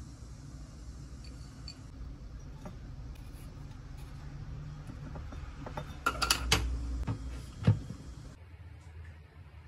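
Glass of ice cubes and a small juice bottle being set down on a wooden tray: a quick run of light clinks about six seconds in, then one louder knock shortly after, over low steady room noise.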